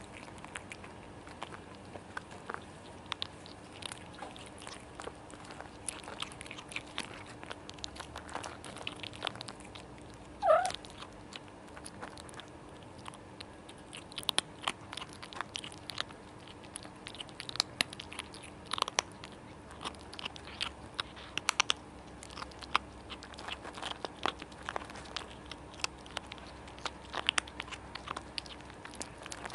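Kittens crunching dry cat kibble, many quick crisp crunches and clicks. About ten seconds in, a short call that falls in pitch is the loudest sound.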